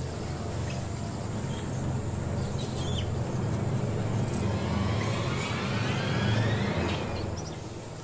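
A low steady drone with a rising whine that sweeps upward from about halfway in, over scattered bird chirps.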